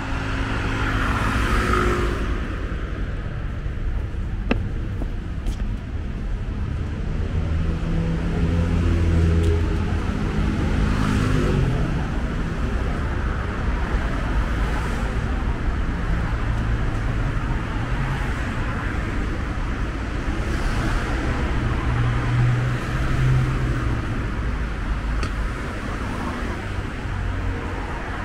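City street traffic: passing cars with steady tyre hiss and engine hum. One vehicle's engine swells past about a third of the way in, and another near the end.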